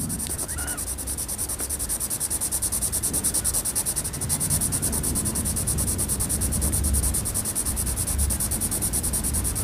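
Soft 8B graphite pencil shading on paper: quick, even back-and-forth strokes scratching in a steady, fast rhythm.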